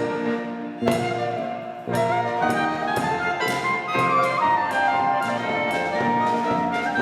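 Klezmer band of clarinet, violin, piano, acoustic bass and percussion playing a lively sirba, dance music with the drum striking about twice a second under the melody.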